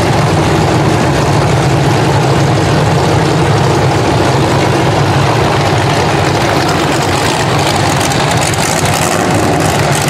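Weld-class demolition derby car engine running at idle, a loud steady rumble.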